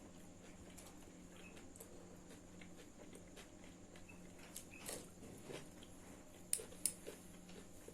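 Faint eating sounds: chewing and small clicks, with a few sharper clicks a little after the middle. A steady low hum sits underneath.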